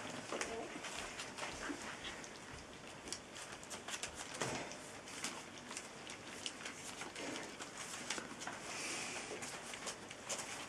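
Litter of puppies eating dry kibble from a plate: a busy, irregular crunching and clicking of kibble being chewed and nudged about.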